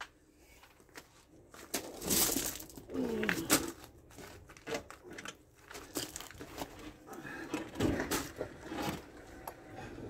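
Hands and tools working at a tractor's engine: irregular clicks, knocks and rustling, with a brief squeak about three seconds in.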